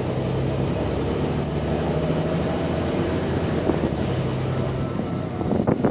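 A bus diesel engine running under way, heard from on board, with the rasp of an exhaust leak in the engine note. A short rattle or clunk comes near the end.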